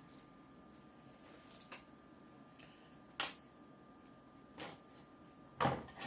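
A few short, sparse clicks and clinks of small hand tools being handled on a workbench, the sharpest about three seconds in.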